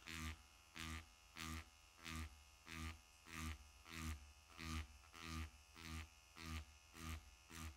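Cartridge tattoo machine turned down to 6.5 V, buzzing faintly as its needle stipples leather. The buzz swells and fades in regular pulses about one and a half times a second.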